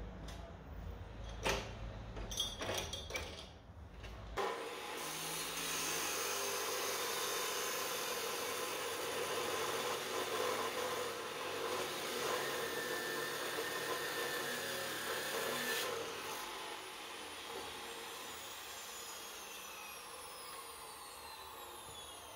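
A few metal clanks as a 50x50 mm, 5 mm thick steel angle iron is set in the vise of an abrasive chop saw. The saw then starts up and grinds through the steel for about eleven seconds, then the disc winds down with a slowly falling whine.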